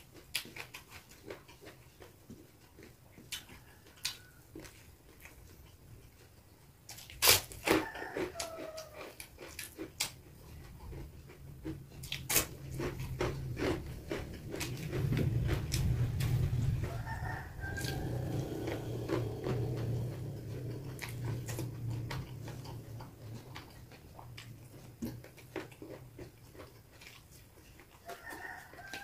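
Close-up eating sounds from a man eating rice, salted fish and raw vegetables by hand: scattered chewing clicks and lip smacks, with a sharp crack about seven seconds in. A low hum swells from about eleven seconds, is loudest around sixteen, and fades out by about twenty-two.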